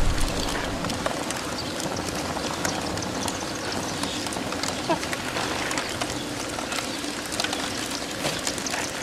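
Small fires crackling: a steady hiss dotted with many quick pops and crackles.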